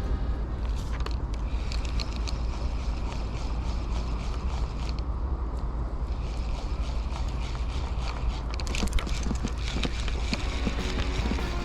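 Steady low rumble like wind on the microphone, with dense, irregular clicking and rattling over it.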